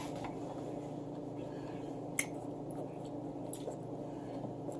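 Faint mouth sounds of eating and chewing, with two short sharp clicks about two and three and a half seconds in, over a steady low hum.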